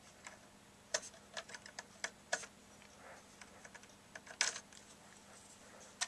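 Light, irregular clicks and taps of a thin metal hook tool picking at the small plastic wire-connector clips inside a radio, to release the wires. The sharpest clicks come about a second in, at about two and a half seconds, and at about four and a half seconds.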